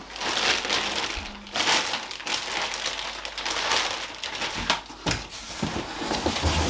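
Clear plastic packaging bag crinkling and rustling as it is handled, with cardboard box rustling as hands dig inside it. A few light knocks about five seconds in.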